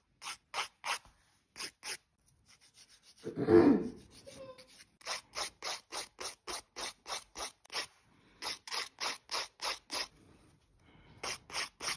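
A grit nail file rasping across fingernails in short quick strokes, about three a second, in runs with brief pauses. A single louder, lower-pitched noise comes about three and a half seconds in.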